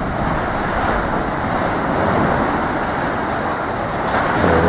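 Steady rush of surf breaking on the shore, with some wind on the microphone.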